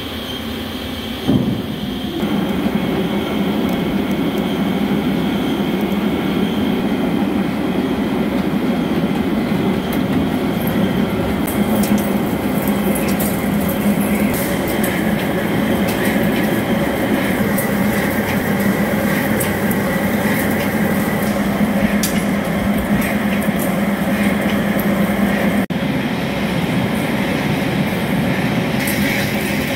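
CNC vertical lathe making a roughing cut on a large steel disc: a steady machine hum from the turning table and drive, which steps up in level about a second in. Scattered sharp ticks run through it from about ten seconds on.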